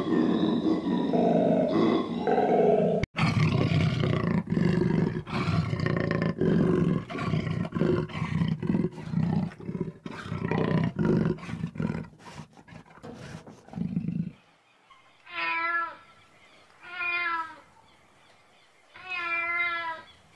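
A black-and-white ruffed lemur calls for about three seconds. A jaguar then gives its roaring call, a run of hoarse grunts about two a second, for about eleven seconds. After a short gap a Siamese cat meows three times, each meow about a second long.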